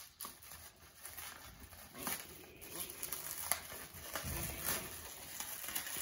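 Plastic cling wrap crinkling and rustling as it is pulled from its box and pressed around a ball of pastry dough, with a few sharp crackles.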